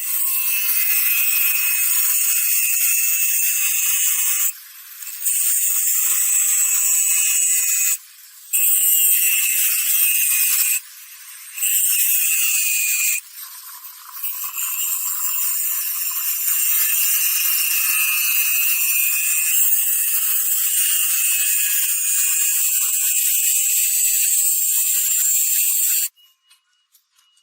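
A power tool working steel, with a steady hiss and a faint whine, stopping briefly four times.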